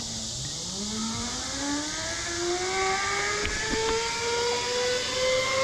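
Zip line trolley pulleys running along the steel cable as a rider comes down the line: a whine that starts about half a second in and rises steadily in pitch as the rider picks up speed.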